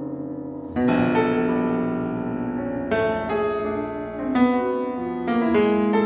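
Concert grand piano playing a slow series of loud chords: a new chord struck about a second in and more every second or so, each left to ring over the one before.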